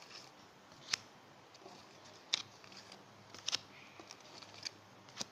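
Counterfeit Yu-Gi-Oh trading cards being flicked off a stack in the hand one by one, giving short, sharp card snaps at irregular intervals, about one to two a second.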